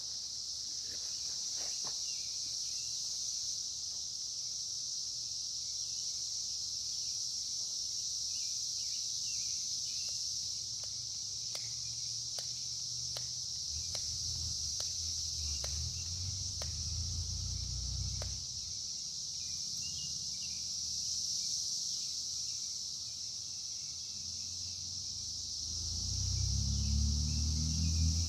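Steady high-pitched insect chorus, with a few faint ticks in the middle and low rumbles about halfway through and again near the end.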